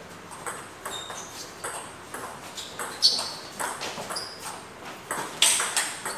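Table tennis rally: the celluloid ball clicking back and forth off rubber paddles and the table, about two to three hits a second. Louder hits come about three seconds in and again near the end.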